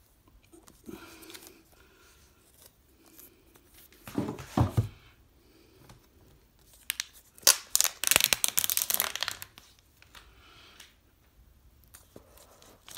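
Plastic shrink-wrap being torn and crinkled off an iPhone box, loudest as a burst of crackling tearing from about seven and a half to nine and a half seconds in. A duller rustle and bump of the cardboard box being handled comes about four seconds in.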